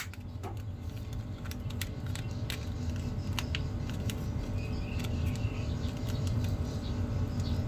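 A plastic action figure being handled: scattered faint clicks and taps of its plastic limbs and tentacles against fingers, over a steady low hum.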